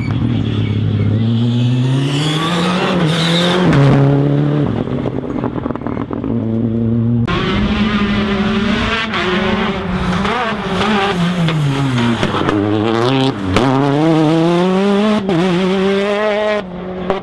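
Rally car engines at full throttle on a stage, the pitch climbing and dropping again and again through gear changes and lifts off the throttle. About seven seconds in the sound changes abruptly to another stretch of hard revving.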